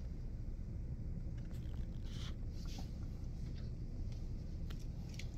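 Steady low room hum, with a few faint rustles and small ticks from hands handling a Brunton compass against a wooden board while levelling its clinometer.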